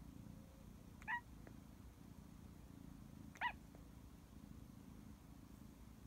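Tabby kitten chirping at birds through a window: two short, high chirps about two seconds apart, over a faint low hum.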